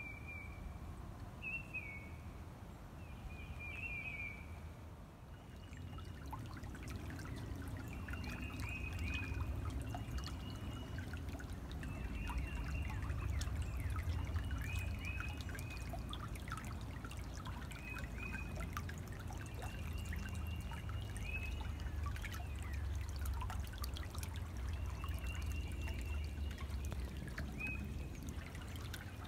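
Shallow stream trickling and splashing over sand and pebbles, coming in about six seconds in. A bird repeats short, high calls throughout.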